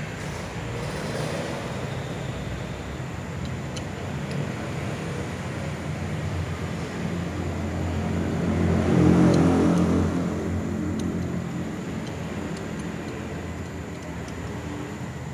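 Motor vehicle engine running close by, growing louder to a peak about nine seconds in and then fading, as a vehicle passes. A few faint clicks from a socket wrench being worked on a wheel hub's axle nut.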